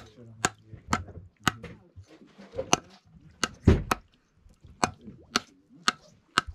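Hammer striking a conch shell again and again, sharp knocks about two a second, knocking a hole about an inch and a half long near the tip of the shell to get at the meat. One blow a little before four seconds in is a heavier, deeper thud.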